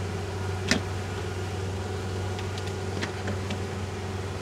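Twin outboard motors on a catamaran towboat running steadily while pulling a yacht under tow, giving a low, even drone. Two sharp clicks stand out, one about a second in and another about three seconds in.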